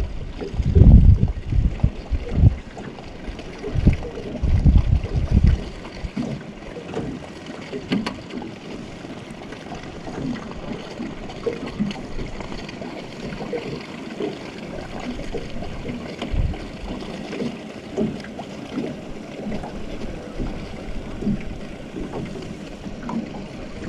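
Wind buffeting the microphone in heavy low gusts for the first several seconds, then a steady hiss of wind and river water with light slaps of water around a boat.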